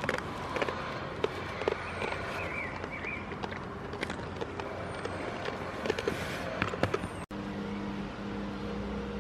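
Irregular knocks and rustling from a handheld camera being bumped and handled close among goats. Near the end the sound cuts off suddenly and gives way to a steady low hum of several held tones.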